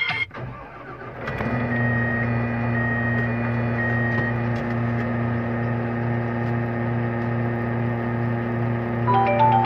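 Steady mechanical hum of a motor or engine running. It comes in about a second in and holds level, with a faint high two-note tone repeating over it for a few seconds. A few short stepped tones sound near the end.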